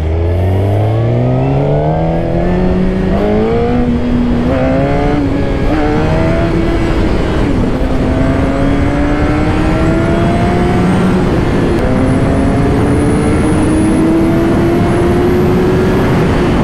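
Inline-four sport motorcycle engine heard from on board, accelerating hard: its pitch climbs quickly with a brief dip at each quick upshift, then pulls more slowly higher through the upper gears, over steady wind rush.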